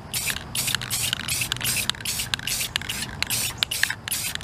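Aerosol can of Rust-Oleum matte clear enamel hissing in short spray bursts, about three a second, as a light clear coat goes onto the copper.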